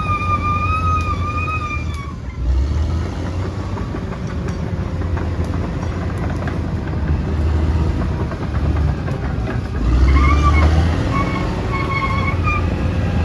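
Bulldozer's diesel engine running under load, a steady low rumble with clatter. A wavering, flute-like music melody plays over it at the start and again about ten seconds in.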